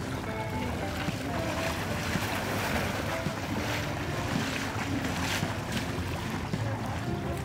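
Wind noise on the microphone over a crowd's indistinct voices, with water splashing.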